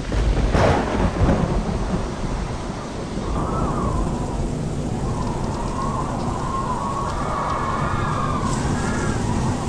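Thunder breaks loudly at the start and rumbles low for a second or two, then heavy rain pours steadily. A faint wavering tone rises and falls behind the rain from about three seconds in.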